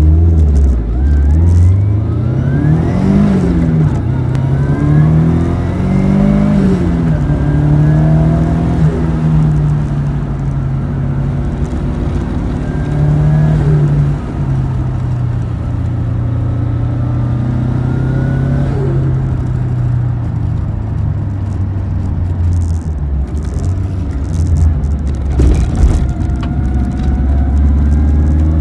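Nissan SR20DET turbocharged four-cylinder in an R32 Skyline GTS-t, heard from inside the cabin, pulling hard from a standing start. The revs climb steeply and drop sharply with a gear change at about three seconds and again at about six and a half seconds, then the engine holds fairly steady, easing off and picking up again through the corners.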